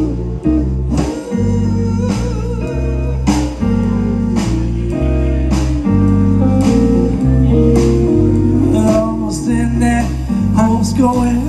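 Live electric blues band playing an instrumental passage. An electric guitar plays a lead line with bending, wavering notes over a bass guitar holding long notes and a drum kit keeping time.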